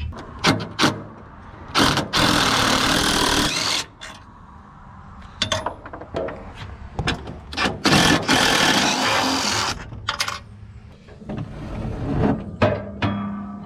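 A handheld power tool runs in two spells of about two seconds each, with sharp metallic clicks and knocks before, between and after them.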